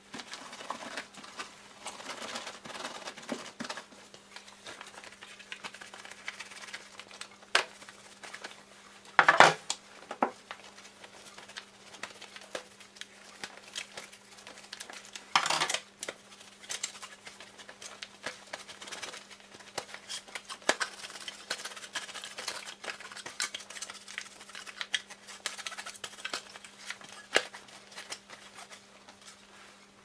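A cotton tea towel rubbing over the plastic parts of a Samsung washing machine's detergent dispenser drawer as they are dried by gloved hands, with sharp plastic knocks against a wooden table now and then; the loudest knock comes about nine seconds in and another about fifteen seconds in.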